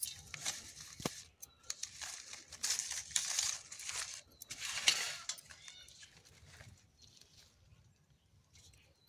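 Rustling and crinkling of leafy harvested vegetables being moved about by hand in a woven basket, in irregular bursts over the first six seconds, then fading to quiet.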